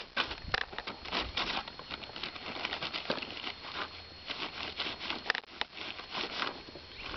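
Plastic tarp crinkling and rustling in quick, irregular bursts as a horse's muzzle noses and mouths at it and a goat steps on its edge.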